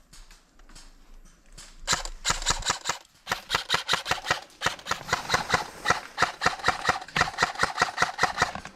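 Airsoft gun firing a long string of rapid shots, about five a second, with a short break about three seconds in.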